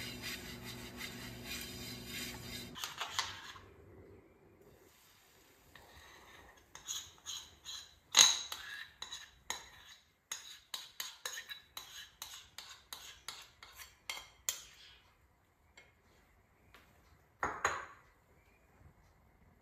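Cutlery clinking and tapping against dishes in a quick run of light clinks over several seconds, the sharpest about eight seconds in, with one more near the end. A steady rushing noise cuts off about three seconds in.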